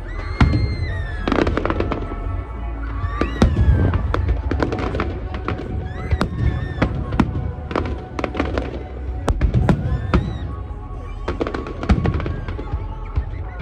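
Fireworks display: repeated sharp bangs and crackling bursts throughout, over loud music with a singing voice playing along with the show.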